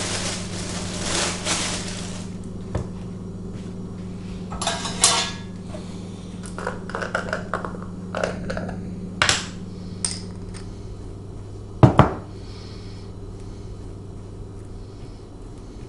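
Kitchen clatter while food is being made: dishes and cutlery clinking, scraping, and knocks on the counter, with two sharp knocks about twelve seconds in as the loudest. A low steady hum runs underneath.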